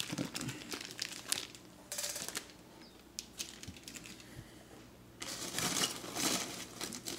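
Packaging being handled: plastic bags crinkle, then a hand rummages through styrofoam packing peanuts. The rustling comes in short bursts, pauses in the middle, and is thickest near the end.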